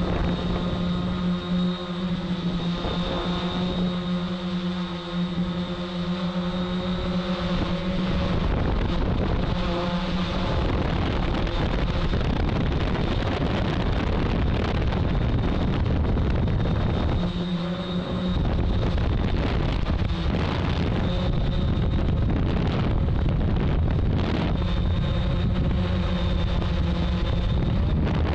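Hexacopter's electric motors and propellers humming steadily in flight, heard through the onboard camera's microphone. Gusts of wind noise on the microphone drown the hum for long stretches in the middle.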